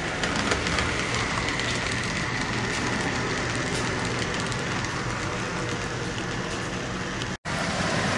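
HO-scale model train running past on the track: the steady running noise of the locomotive's motor and its wheels on the rails. The sound cuts out for an instant near the end.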